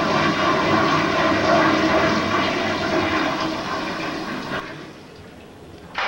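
Toilet flushing: a loud rush of water that dies down over the last couple of seconds, with a sharp knock near the end.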